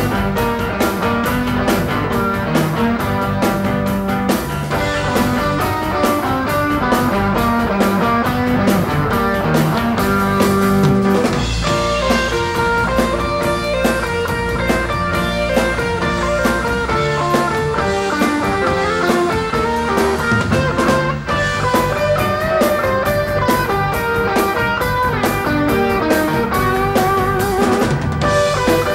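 Progressive rock band playing an instrumental passage on drum kit, electric guitars, bass guitar and keyboards, with a steady drum beat; the arrangement changes about twelve seconds in.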